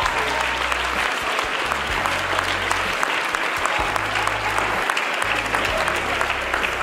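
A church congregation applauding steadily, many hands clapping at once, over low held bass notes of music that change about once a second.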